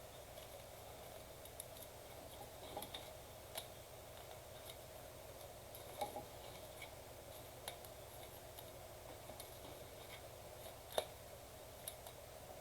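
Faint handling of trading cards and plastic card sleeves: scattered small clicks and taps over a low steady hum.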